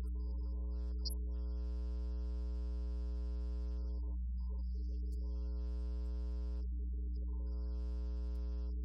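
Organ playing slow, sustained chords that change every second or two, over a steady low electrical hum.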